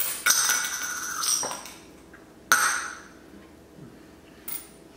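A quarter bounced off the table clinks into a cup and rattles and rings there for about a second, a sound that in the quarters game means the shot went in. A second coin strike rings out about two and a half seconds in, and a faint clink comes near the end.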